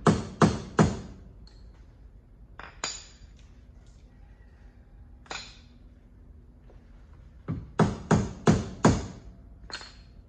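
Hammer blows on a metal rod driven through the front leaf spring eye of a Club Car DS golf cart, pushing in new bushings, each blow with a short metallic ring. There are three quick blows at the start, a few single ones in the middle, then a run of about five near the end.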